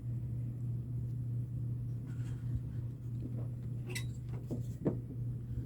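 Steady low hum, with a few faint small clicks about four to five seconds in.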